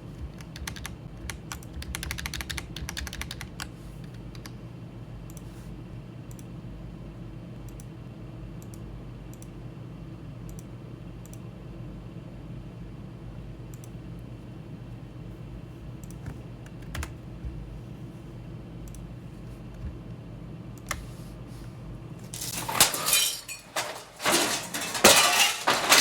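Scattered keyboard and mouse clicks over a steady computer hum, then about three seconds before the end a wall mirror falls and lands in a burst of loud clattering crashes.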